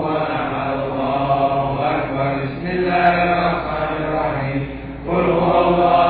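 Sufi dhikr being chanted, a steady repetitive recitation that dips briefly just before five seconds in and then resumes.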